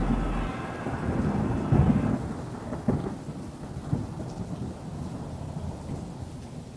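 Rolling thunder with rain, rumbling in a few swells and fading out. A music track cuts off about half a second in.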